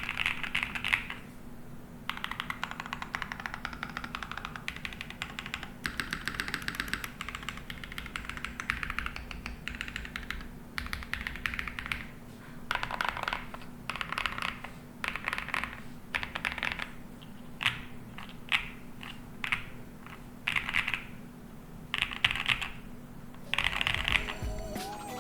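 Mechanical keyboard key rolls: bursts of rapid clacking as fingers roll across factory-lubed BSUN YOU linear switches in a gasket-mounted, aluminium-plate DaringRun DR70F with no foam and DCD-profile keycaps. The bursts run from about half a second to two seconds, separated by brief pauses.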